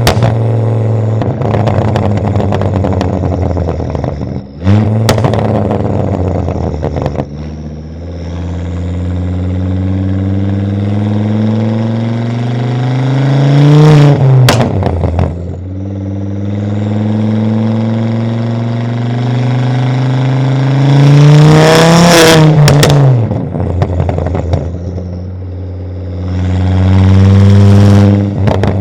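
Catless turbocharged 2.5-litre inline-five of a Volvo S60 2.5T pulling hard through the gears. The engine note climbs steadily, drops at a gear change about fourteen seconds in and again about twenty-two seconds in, then climbs once more. A few sharp exhaust cracks sound around each shift.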